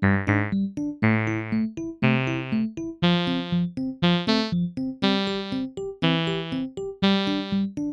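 Background music: a keyboard tune with a strong chord struck about once a second, each fading away, and shorter notes between.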